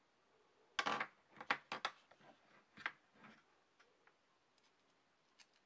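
Small RC transfer-case parts (a gear, a pin, ball bearings) being handled over a plastic parts organizer: a quick cluster of clicks and taps about a second in, a few more over the next two seconds, then faint scattered ticks.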